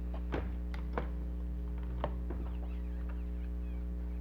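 A steady low electrical hum runs throughout, with three short, sharp clicks at roughly one-second intervals.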